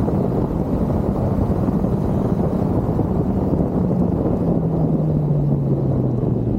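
Kawasaki Z900's inline-four engine running under way, with wind rush over the microphone. Its note holds and then drops slightly in pitch over the last two seconds.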